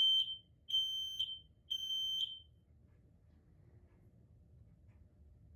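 Kidde combination smoke and carbon monoxide alarm sounding its fire signal under a push-button test: a high-pitched beep ending about half a second in, then two more beeps, completing the three-beep pattern. About three seconds of pause follow.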